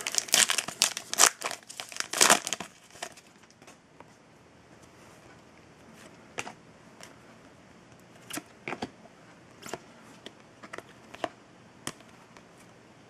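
A trading-card pack wrapper being torn open and crinkled by hand, loud and busy for the first three seconds. After that come quiet, scattered short clicks and rustles of the cards being handled and flipped.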